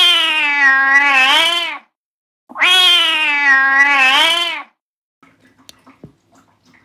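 Domestic cat giving two long, drawn-out yowls, each about two seconds with a short gap between, while being brushed with a grooming brush: a complaint at the grooming.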